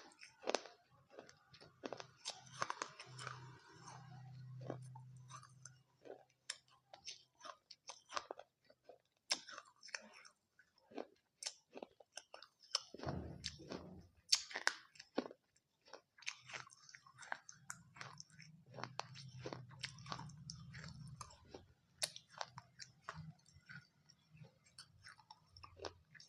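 Close-up chewing of crisp papdi in dahi papdi chaat: many irregular sharp crunches with wet mouth sounds between them.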